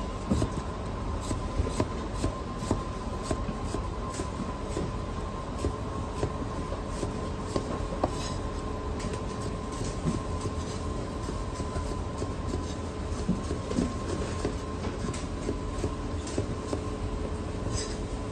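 Chinese cleaver slicing bitter gourd on a cutting board: a run of short, uneven chopping knocks. Underneath is a steady low hum with a faint high tone.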